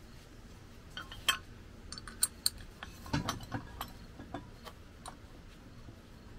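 Small steel hardware clicking and clinking as gloved hands fit a bolt and washer into a steel mount: an irregular scatter of sharp ticks and knocks, the loudest between about one and two and a half seconds in.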